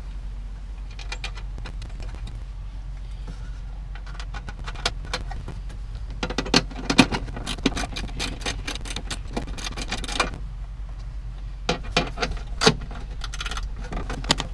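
Light metallic clicks and clinks of small nuts, screws and a hand tool being handled as nuts are threaded onto mounting screws, with clusters of quick clicks about halfway through and again near the end.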